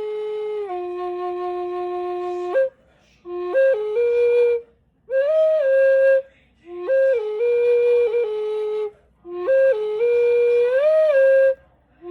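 A solo flute plays a slow, free melody in about five phrases. Each phrase holds long notes, with quick grace-note flicks and a smooth slide upward near the end, and short silences fall between the phrases.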